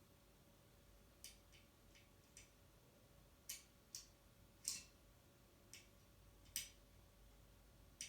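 Faint, irregular light clicks, about a dozen, from a screw and screwdriver being handled and driven into the ceiling fitting, over a faint steady hum.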